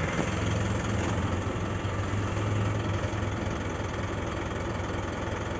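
Isuzu 4JJ1 four-cylinder turbodiesel idling steadily.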